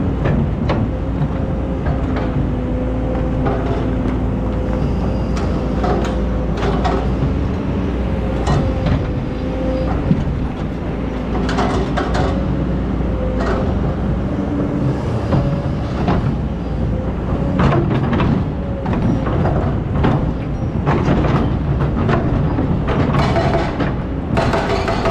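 Excavator's diesel engine running steadily under load, with irregular knocks and clanks from the working machine.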